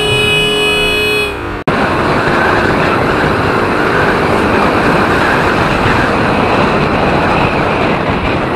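Steady wind rush and riding noise on an action camera mounted on a moving Kawasaki Fury 125 motorcycle. A short stretch of background music cuts off suddenly about a second and a half in.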